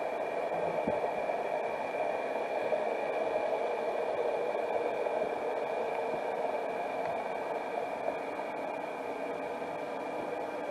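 Steady, even hiss of a camera recording underwater through its housing, with a faint steady high tone.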